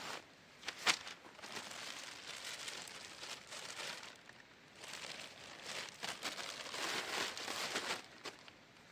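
Footsteps through forest undergrowth: leaves and brush rustling and crackling, with a sharp snap about a second in.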